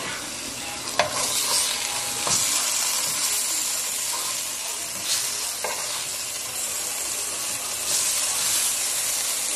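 Pot of blended cauliflower soup heating on a gas stove: a steady sizzling hiss, broken by a few light clicks and knocks.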